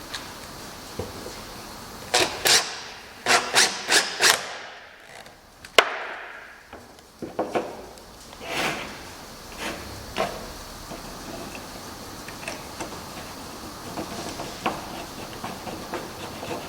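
Wood being knocked during woodworking: a quick run of about six sharp knocks about two seconds in, a single sharp crack near six seconds, then scattered lighter taps and clicks.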